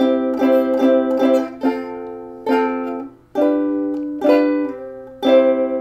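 Ukulele strummed: five quick chords, then four slower ones about a second apart, the last left ringing. These are the closing chords of a sing-along song's accompaniment.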